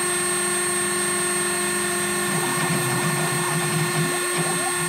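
Dremel rotary tool spinning with a steady high whine as the spindle of a DIY Solsylva CNC router cutting foam board, over the hum of the stepper motors driving the axes. The stepper sound changes a little over two seconds in as the machine's moves change.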